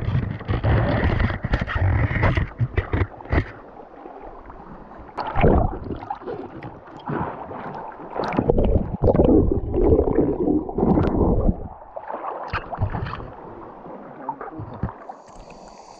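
River water sloshing and gurgling in irregular surges, with splashes and scattered knocks and clicks.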